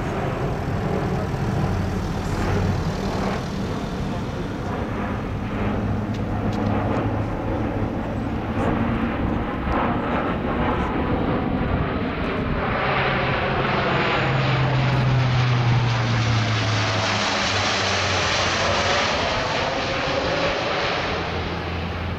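Lockheed Martin C-130J Hercules flying overhead, its four Rolls-Royce AE 2100 turboprops and six-bladed propellers giving a steady deep drone. From about halfway the sound swells and brightens with a sweeping, hollow phasing tone as the aircraft passes closest, then eases a little near the end.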